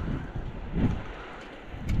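Wind buffeting the microphone in low, rumbling gusts while on the move, swelling a little before the middle and again near the end.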